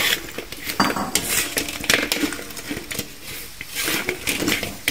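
Metal utensil and fried chicken wings clinking and knocking against a frying pan in irregular strikes as the wings are put into the pan of sauce.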